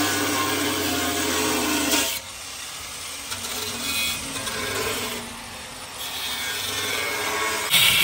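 Handheld angle grinder cutting through a tractor's painted sheet-metal body panel, a steady whine. About two seconds in it turns quieter and wavers as the disc bites. It comes back louder just before the end.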